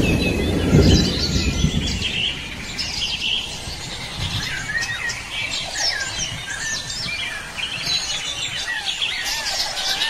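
Small songbirds chirping and twittering, many short high calls overlapping throughout, with a low rumble in the first couple of seconds.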